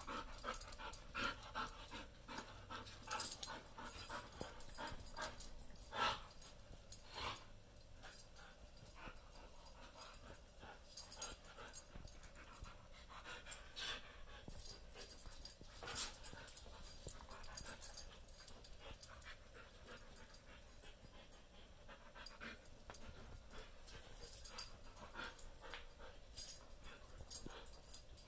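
Two dogs mouth-wrestling in play: panting and wheezy breaths with irregular short clicks and scuffles.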